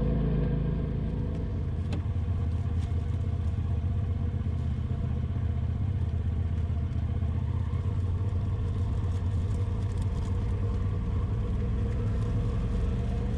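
Side-by-side UTV engine running steadily at trail speed, heard from the seat, with a few light rattles over the rough dirt trail.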